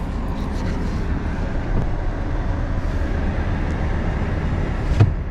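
Steady road noise inside a pickup truck's cab driving on a snowy road: the engine and tyres on snow make a low hum. A single sharp knock comes about five seconds in.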